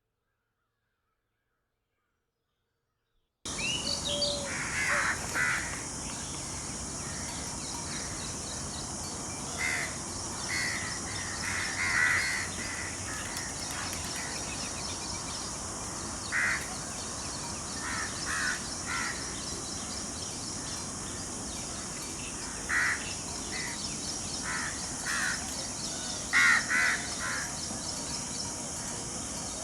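Silence for the first few seconds, then short bird calls, singly and in quick pairs or runs, at irregular intervals over a steady high hiss.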